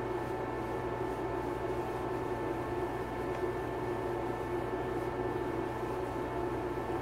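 Steady hum with several fixed tones and an even hiss, with a few faint soft rustles of a makeup remover cloth wiped over the face.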